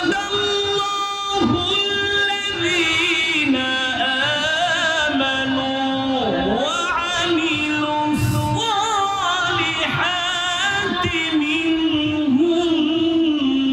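A man reciting the Quran in the melodic, drawn-out tilawah style, holding long notes with wavering ornaments and pitch slides.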